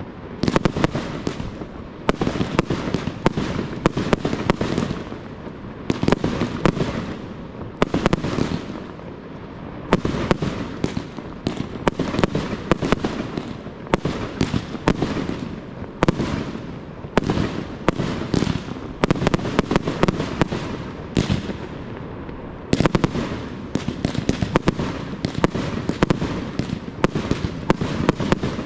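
Fireworks display: aerial shells launching and bursting overhead in a dense, continuous run of sharp bangs and crackle, with a few brief lulls between volleys.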